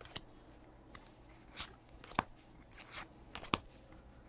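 Pokémon trading cards handled one by one, a card slid from the front of a small hand-held stack to the back: a series of short card snaps and brief rustles, about half a dozen in all.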